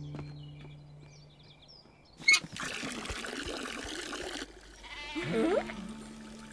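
A sharp click, then water pouring from an outdoor tap for about two seconds before it cuts off suddenly. A cartoon sheep then gives one short bleat that rises in pitch.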